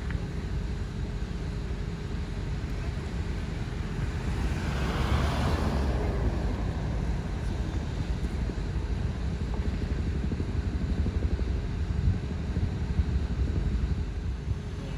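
Steady low rumble of a moving vehicle's road and engine noise, with a rushing sound that swells and fades about five seconds in.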